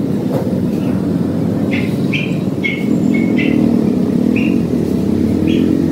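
Steady rumble of road traffic, with a vehicle engine humming louder from about three seconds in. Short high chirps or squeaks come in a quick series over the middle of the stretch and once more near the end.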